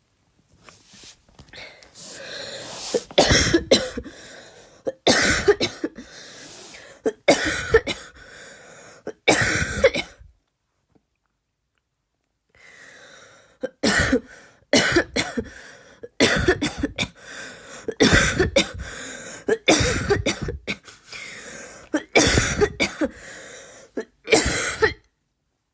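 A woman doing deliberate, forced barking coughs in two long runs of sharp, harsh coughs with a pause of about two seconds between them; the coughs come out without much of a true bark.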